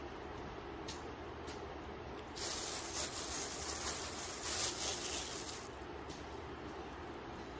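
A hiss of spray lasting about three seconds, starting about two and a half seconds in, over a steady low hum.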